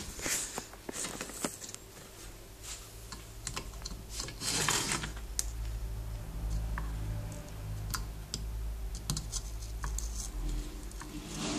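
Light clicks, taps and scraping of tools and metal parts being handled on a workbench. A low steady hum comes in about halfway.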